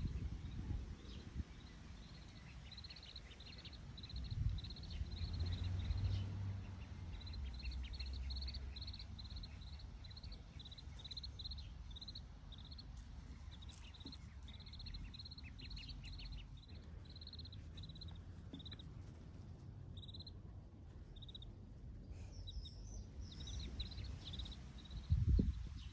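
Mallard ducklings peeping: a long run of short, high peeps, about two a second, that stop about three-quarters of the way through, over a low rumble.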